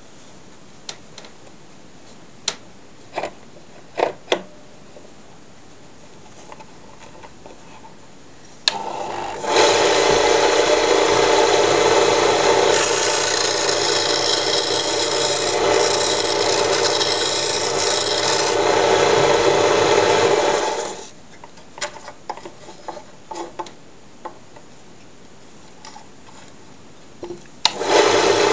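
Homemade belt-driven wood lathe: a few clicks as the wooden blank is fitted, then the lathe runs for about eleven seconds while a turning chisel cuts the spinning blank, harsher and hissier in the middle of the cut. It stops, a few more clicks follow, and it starts up again near the end.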